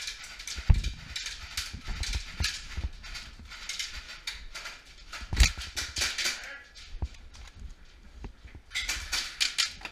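Heavy footfalls and knocks on wooden stairs, mixed with irregular sharp clicks and clatter of gear, with a few hard thuds and a dense run of clicks near the end.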